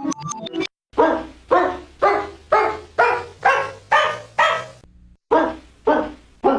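Stock cartoon sound effect of a dog barking in a steady, even rhythm, about two barks a second: a run of eight barks, a short break, then the barking resumes. It opens with the last of a quick run of synthesizer notes.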